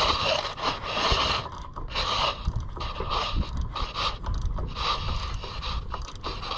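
Two-stroke engine of a 1980 Harley-Davidson golf cart being turned over by hand with its head off, giving irregular bursts of mechanical creaking and scraping as the piston, belt and pulleys move. The engine is still stiff and hard to turn.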